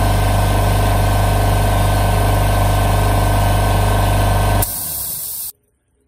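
Ingersoll Rand 5 HP electric air compressor pumping up its tank under load, running steadily, then shutting off about four and a half seconds in as the pressure switch cuts out at about 130 psi, still short of its rated 135. A short hiss of released air follows the shutoff, typical of the pressure switch's unloader valve venting the pump line.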